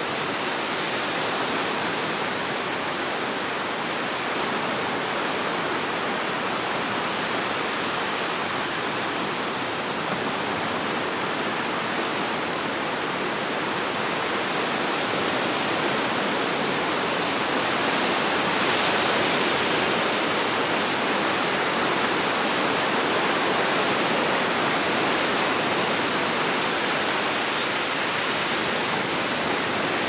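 Small waves breaking and washing up the shore of a sandy beach, a steady surf hiss that swells a little partway through.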